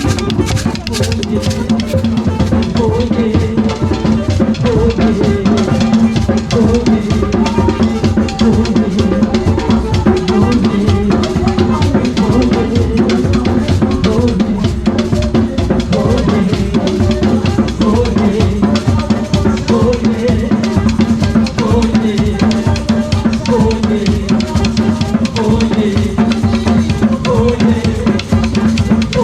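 Gospel music with a steady drum-kit beat over a sustained bass line.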